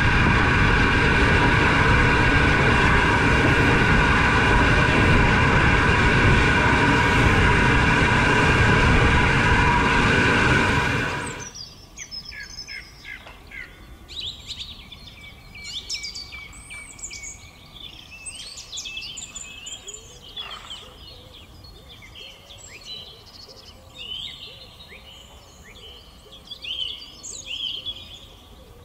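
A steam locomotive, the Hunslet 0-6-0 saddle tank, gives a loud steady hiss with several whistling tones that cuts off suddenly about eleven seconds in. After that, birds sing and chirp on and off.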